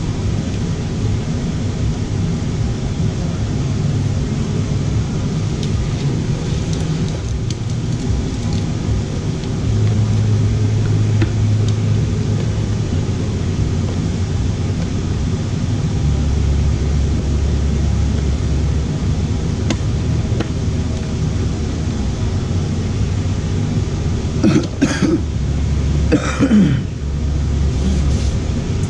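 A steady low hum, with a man clearing his throat a couple of times near the end.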